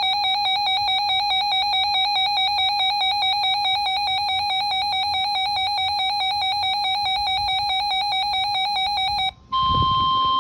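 A weather alert radio's electronic alarm warbles rapidly and continuously. Near the end it breaks off briefly and gives way to the steady single-pitch 1050 Hz NOAA Weather Radio warning tone, which signals that a warning broadcast is about to follow.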